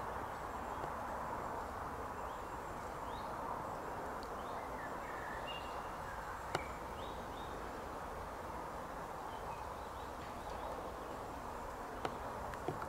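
Quiet outdoor ambience by a lake: a steady low hiss with a few faint, brief bird chirps a few seconds in, and two sharp clicks, one about halfway and one near the end.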